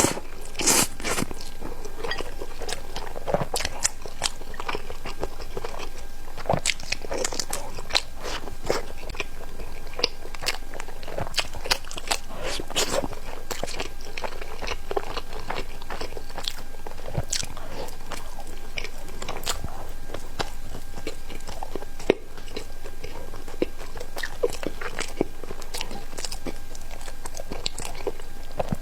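A person chewing and biting crunchy food close to the microphone, with many sharp, irregular crunches.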